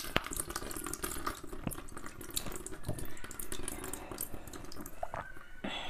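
Wet sucking and slurping of a soft green jelly held against the lips, close to a clip-on microphone, with many small wet clicks and smacks and a longer slurp near the end.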